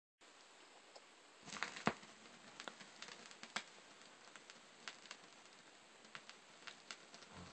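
Vinyl LP surface noise in the lead-in groove before the music: faint steady hiss with scattered clicks and pops, with a burst of louder pops and low rumble about a second and a half in.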